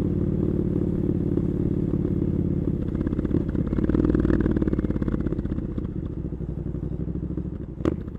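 Triumph Scrambler 900's 900 cc parallel-twin engine with an Arrow exhaust running steadily at low revs, swelling briefly about four seconds in and then easing off. A single sharp click comes near the end, and the engine sound dies away after it.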